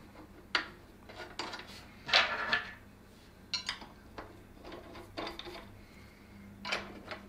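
Small metal screws and the parts of a projector ceiling-mount bracket clicking and clinking as they are handled and set into place on the projector, in scattered light taps with a short clatter about two seconds in.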